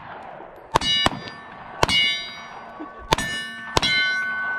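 Handguns firing at steel targets: a string of about six sharp shots, most followed by the steel plates ringing with a clear, lingering tone.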